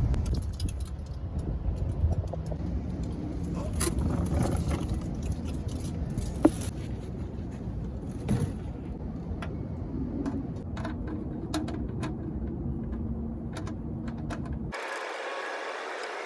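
Scattered metallic clinks and short scrapes of hand tools worked under a car during an oil drain, over a steady low rumble that cuts off about fifteen seconds in.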